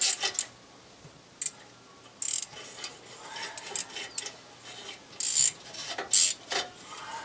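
Steel hand tools clicking and scraping against a cast-iron exhaust manifold flange as a socket and a drill bit are worked in its bolt hole: scattered short metallic clicks and a few louder scrapes, the loudest after about five seconds.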